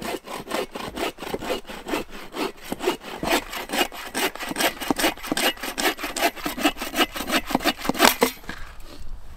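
Hand saw cutting through wood in rapid, even back-and-forth strokes, stopping near the end.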